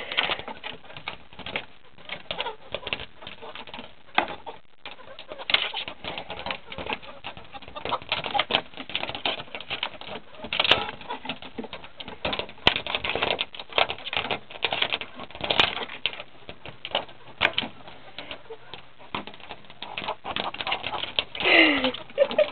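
Chickens' beaks pecking rapidly against a glass door pane, a fast, irregular clatter of taps, with hen calls among them and one falling squawk near the end.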